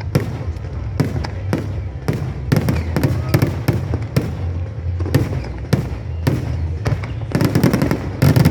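Aerial fireworks shells bursting in quick succession, about two sharp bangs a second over a steady low rumble. Near the end they come in a dense, rapid volley.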